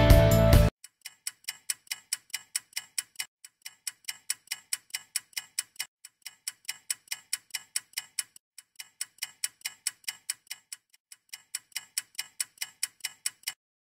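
Music cuts off about half a second in, then clock-like ticking at about four ticks a second, in runs of a few seconds with short breaks, stopping just before the end.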